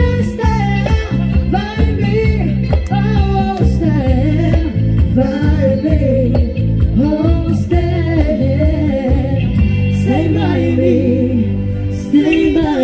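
Women singing a song over a backing track with a steady beat; about ten seconds in the beat stops and the voices carry on over held low notes.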